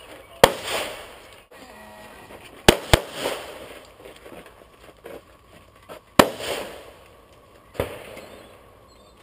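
Pistol shots from a handgun at a practical shooting match: five shots in all, one about half a second in, a quick pair a quarter second apart near three seconds, then two single shots, each trailing off with an echo.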